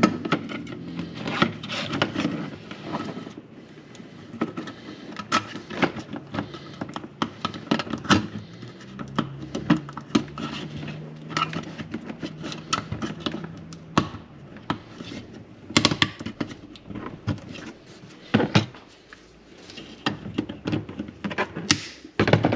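Hands working parts of a light-bar kit by hand at close range: scattered clicks, knocks and rubbing, with a louder knock near the end.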